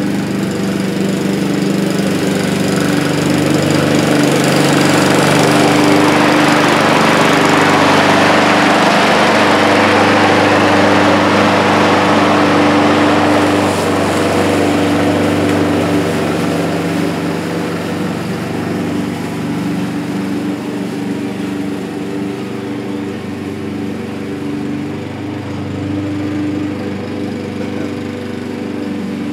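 Honda self-propelled walk-behind lawn mower's single-cylinder four-stroke engine running steadily while mowing grass. It grows louder as the mower comes close, is loudest for several seconds, then fades from about halfway through as it moves away.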